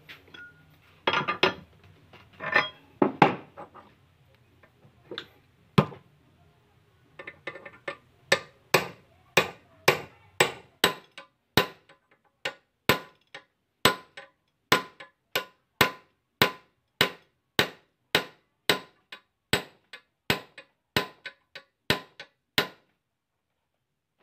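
A hammer striking a steel punch set on a car tie rod end clamped in a steel bench vise, part of repairing a loose, worn tie rod ball joint. A few irregular metal knocks and clinks come first, then a long, even run of sharp blows at about two a second, stopping shortly before the end.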